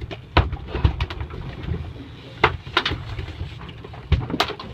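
Irregular sharp knocks and thumps on a boat deck as a landed tuna is handled.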